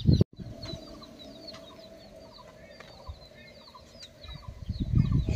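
Outdoor farmyard birds: small birds chirping over and over, with hens clucking. A brief dropout just after the start, and low rumbling bursts near the end.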